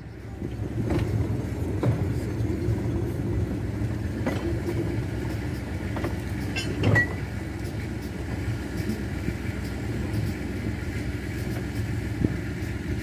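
Narrow gauge diesel locomotive engine running steadily as a short passenger train moves past, with occasional knocks and a sharp clank about seven seconds in.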